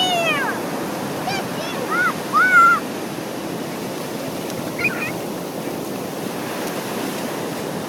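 Steady wash of surf on a beach. A few short, high-pitched voice-like calls come in the first three seconds.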